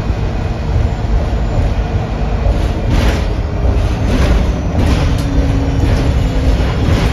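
Interior ride noise of a 2008 Nova Bus LFS city bus: a steady low rumble of engine and road, with a few brief rushes of noise about three, four and five seconds in.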